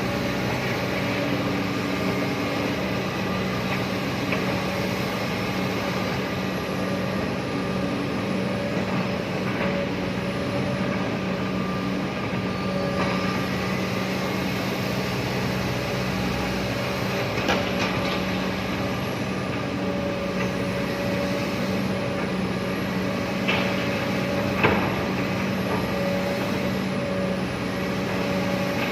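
Excavator's diesel engine running steadily at a constant pitch, with a few short sharp knocks about two-thirds of the way through.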